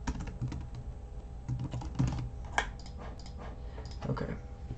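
Typing on a computer keyboard: a run of irregular key clicks, a few louder than the rest, as a name is typed in.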